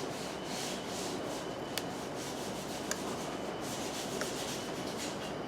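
A hand awl being worked into the wood of a canjo neck to mark screw holes: repeated scratchy rubbing strokes, with a few sharp clicks.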